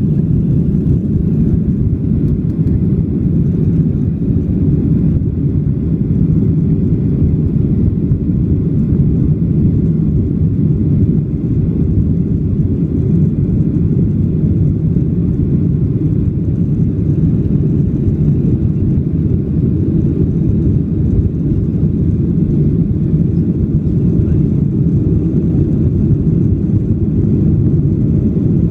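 Boeing 737-700 cabin noise through the takeoff roll into the initial climb: the CFM56-7B turbofans at takeoff thrust and the rush of air over the fuselage make a steady, loud low rumble.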